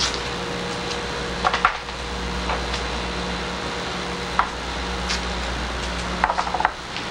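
Masking tape pulled off the roll, torn and pressed onto wood veneer: short crackly rips and taps about a second and a half in and a quicker cluster near the end, over a steady low electrical hum.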